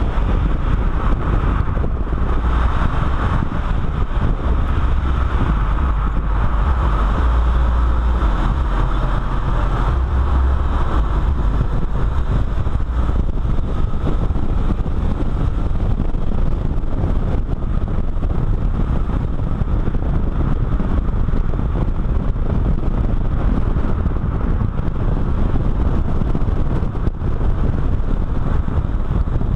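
Car driving at speed on a circuit, heard through a camera mounted on the side of its body by the front wheel: a steady, loud rumble of wind on the microphone and tyre and road noise, with the car's running underneath.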